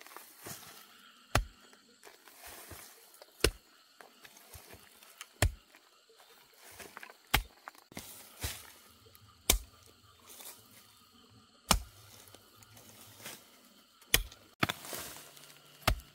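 Chopping into wood with a bladed hand tool, sharp single strikes coming every second or two.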